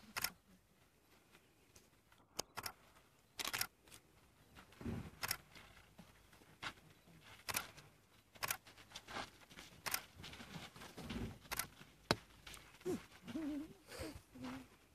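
Camera shutters clicking, about a dozen sharp single clicks at irregular intervals, with a couple of dull low thuds in between.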